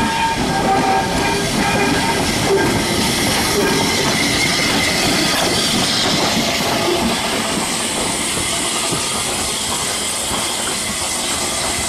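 Southern Railway S15 class No. 847 steam locomotive running past with steam hissing, over a steady rattle of wheels and running gear. The hiss grows stronger about halfway through as the engine itself goes by.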